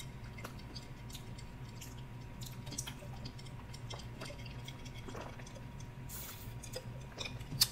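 Quiet sipping of a drink through a plastic straw from a glass jar, with small scattered mouth clicks and a short slurp about six seconds in.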